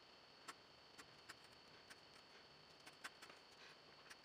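Faint, irregular ticks and light scratches of a graphite pencil sketching on paper, over a faint steady high-pitched whine.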